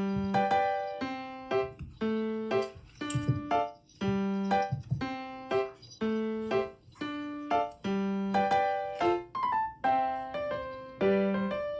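Background music: a light, bouncy piano tune with evenly paced struck notes that ring and fade.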